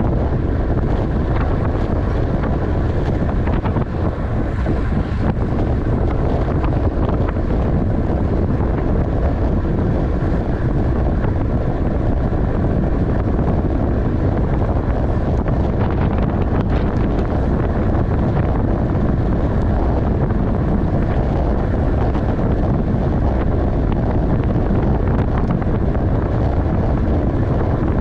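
Steady rushing wind noise on the microphone of a road bike racing at speed.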